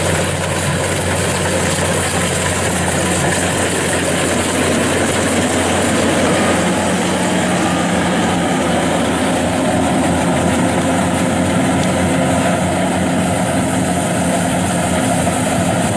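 Kubota DC-95GM rice combine harvester running steadily at working speed, its diesel engine and threshing machinery making a loud, even drone as it cuts and threshes rice.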